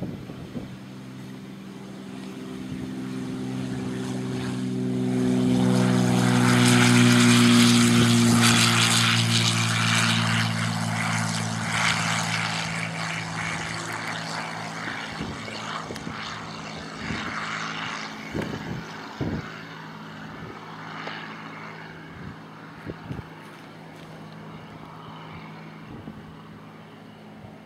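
Cessna 182 Skylane's single piston engine and propeller during its takeoff and climb-out: a steady drone that swells to its loudest about seven seconds in, drops in pitch as the plane goes by, then slowly fades as it climbs away. A few short knocks sound in the second half.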